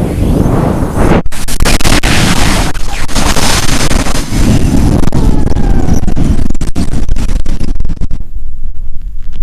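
Very strong wind in loud, rough gusts battering the microphone with a heavy low rumble. The hiss thins out about eight seconds in.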